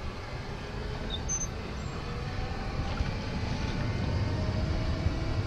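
E-Z-GO golf cart driving along pavement: a steady low rumble with a faint whine that rises gently in pitch from about two seconds in.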